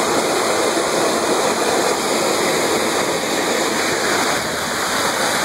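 Muddy floodwater rushing down a slope in a steady torrent, a loud continuous rush of water.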